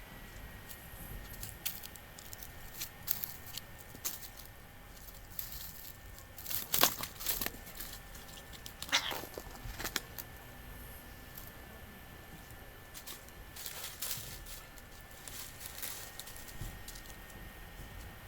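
Scattered light rustles, crackles and clicks, the loudest about seven and nine seconds in, over a faint steady high tone.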